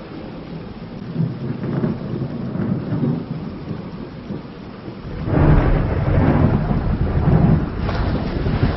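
Thunder rumbling over steady rain, with a louder, deeper rolling peal starting about five seconds in and fading after about three seconds.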